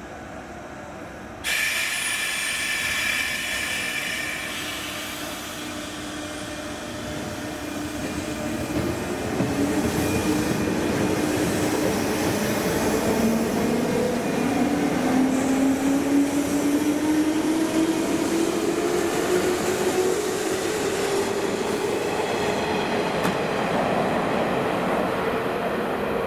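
JNR 201 series electric train with armature chopper control pulling away from a station. Its motor whine rises steadily in pitch as the six-car train gathers speed, over the rumble of wheels on rail, with a sudden burst of noise a second and a half in.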